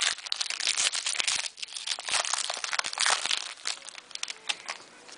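A football trading-card pack's wrapper being torn open and crinkled by hand, a dense crackling for about three and a half seconds that thins to a few separate crinkles near the end.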